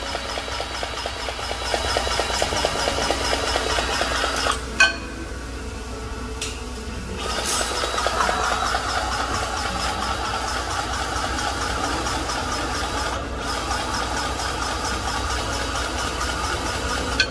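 A motor or engine running steadily with a fast, even ticking rattle, and one sharp click about five seconds in.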